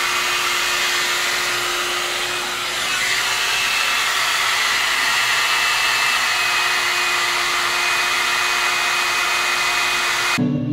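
Amika hot-air blower brush running steadily, a rush of air with a thin motor whine, as it is drawn through a section of hair. It cuts off abruptly just before the end.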